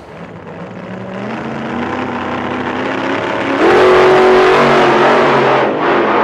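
Car engine revving, its pitch and loudness climbing for about three and a half seconds, then a sudden louder burst of engine and rushing noise that holds, with a brief dip near the end.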